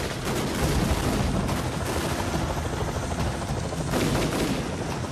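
Dense, continuous gunfire, with rapid automatic-weapon fire and scattered shots over a helicopter's rotor noise: a street-battle soundtrack.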